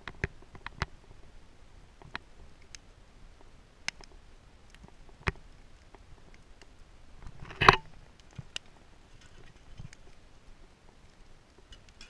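Wood fire burning low under a cooking grate, crackling with scattered sharp pops and one louder, longer crackle about two-thirds of the way through.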